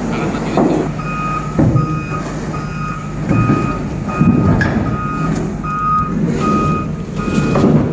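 Heavy machine's reversing alarm beeping at a steady pace, about three beeps every two seconds, starting about a second in. A diesel engine runs underneath, with a few low thuds.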